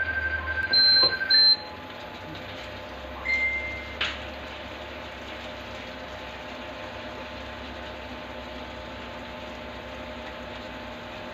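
Electronic beeps from an induction cooktop: a held beep of about a second and a half with two short higher beeps over it, another short beep about three and a half seconds in, and a click at about four seconds. After that the cooktop runs with a steady hum.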